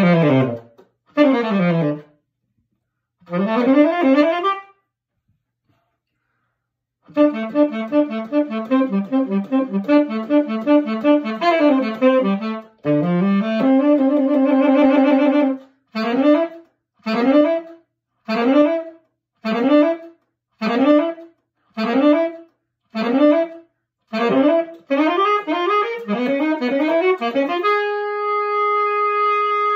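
Unaccompanied tenor saxophone played solo: short phrases with sweeping glides, a pause of about two seconds, then fast runs and a held low note. After that comes a string of short swooping phrases about one a second, and near the end a long held note.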